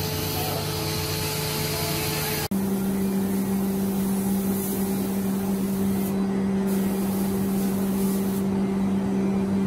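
Air spray gun hissing in bursts as it sprays wood finish, over a steady motor hum. The hum changes pitch at a cut about two and a half seconds in.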